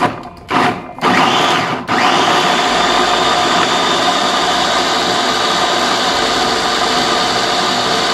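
Small electric food chopper with a glass bowl, its motor pulsed twice briefly, then running steadily with a short break just before two seconds in, blades chopping raw shallots, garlic, ginger, galangal, turmeric and lemongrass down toward a paste.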